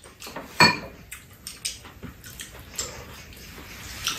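Mouth sounds of eating soy sauce braised chicken and noodles: wet slurping and chewing, with a louder one about half a second in, and light clicks of chopsticks against the pan and bowls.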